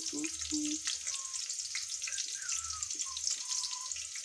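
Chopped onions frying in hot oil in a pan: a steady sizzle with a few small pops.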